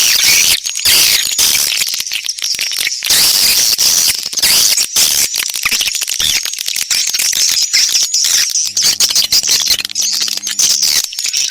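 Swiftlet call recording: dense, continuous high twittering and chirping of edible-nest swiftlets, laced with rapid sharp clicks. It is a lure sound played to draw swiftlets into a nesting house.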